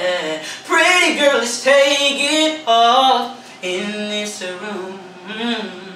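A man singing unaccompanied, with no backing track: sliding R&B vocal runs and held notes in several phrases, with short breaks between them.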